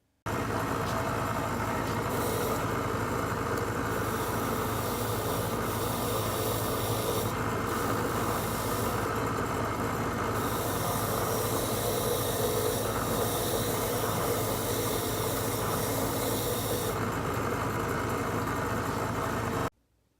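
Motor-driven wire brush scouring rust off the steel links of an old bicycle-style chain: a steady motor hum under a rough, hissing scrub that eases and returns as the brush is pressed on and lifted. It starts suddenly and cuts off suddenly near the end.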